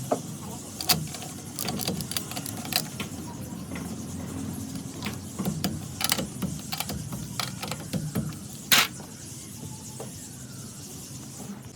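Scattered metallic clicks and knocks of tools and parts being handled during work on a car's suspension and wheel, over a steady low rumble; the loudest, a sharp clank, comes a little before nine seconds in.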